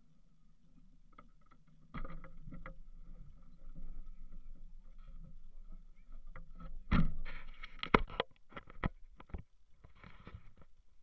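Handling noise from a camera being picked up and moved: irregular clicks, rubbing and knocks starting about two seconds in. The sharpest knocks come around seven to nine seconds in, and a short scraping rub follows near the end.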